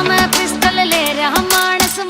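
Background music: a sung melody over a steady beat of drum hits.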